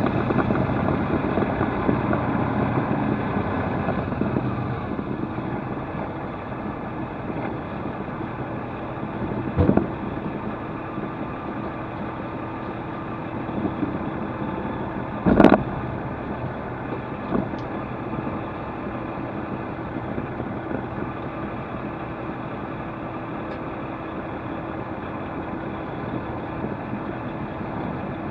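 A semi-truck's diesel engine running as heard from inside the cab while the truck moves slowly: a steady hum, a little louder for the first few seconds. Two sharp knocks stand out a few seconds apart, the second the loudest sound.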